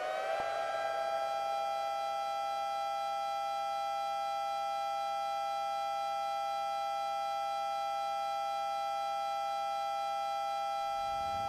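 Belmont B-115 outdoor warning siren finishing its wind-up in the first half second, then holding a steady two-tone chord. Near the end a second, lower tone begins rising underneath it.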